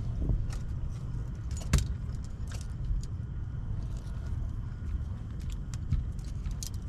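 Clicks, knocks and light metallic rattles of fishing gear being handled, over a steady low rumble. The loudest knock comes a little under two seconds in.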